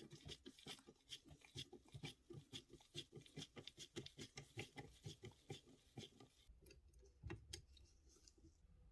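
Quick, regular strokes of a small hand tool working on a model car part, about four a second, stopping after about six seconds, with two more strokes near the end.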